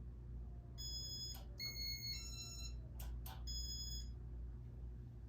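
Casablanca IntelliTouch fan control beeping as speed 3 is selected: about four electronic beeps at changing pitches, with a few sharp button clicks among them, over the low steady hum of the running ceiling fan motor.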